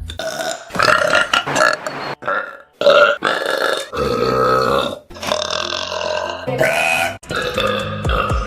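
A woman's long, loud burps, about four in a row, each lasting one to two seconds with brief gaps between. They are air-swallowing burps, forced by gulping air and letting it back up.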